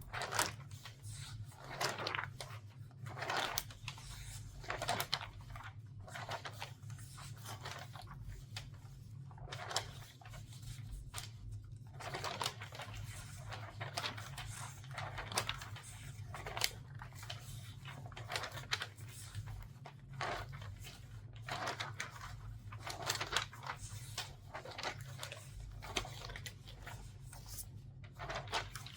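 Newspaper pages being turned quickly one after another, each turn a brief rustle and crinkle of newsprint, about one a second, over a steady low hum.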